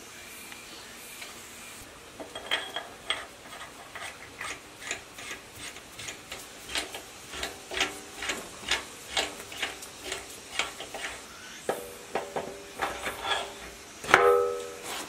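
Hand assembly of a 1115 single-cylinder diesel engine's cast-iron parts: a run of light metallic clicks and taps, about two a second, as tools and parts are worked. Near the end comes a loud ringing clank as the cylinder head is set onto the block studs.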